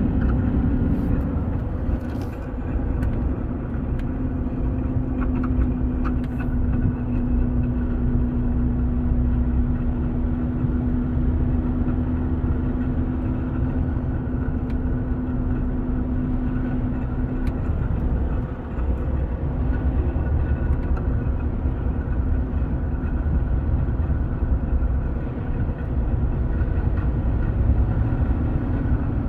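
Car engine running, with a steady droning tone over a low rumble that fades somewhat after about two thirds of the way through. It is the strange noise heard at the front left of the engine compartment.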